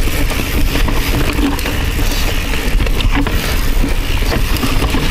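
Mountain bike descending a fast, rocky trail: tyres and frame rattling and clattering over loose rock in a dense run of knocks, over a steady low rumble of wind on the microphone.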